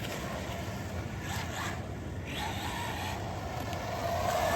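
Arrma Typhon Grom RC buggy driving, its small electric motor whining up briefly as it accelerates over the scrubbing noise of its tires. A tire is rubbing a little on the body.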